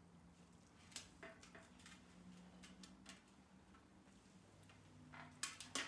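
Near silence with a faint low hum, broken by a few soft clicks and taps as a raw whole chicken is picked up and handled; a louder cluster of taps comes near the end.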